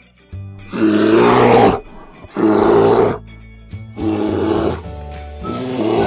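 Brown bear roaring, four loud growling roars about a second and a half apart, over background music.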